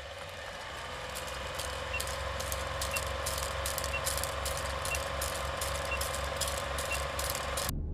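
Old film projector sound effect: a steady running hum with crackles and pops of worn film and a faint short blip about once a second, fading in slowly and cutting off abruptly near the end.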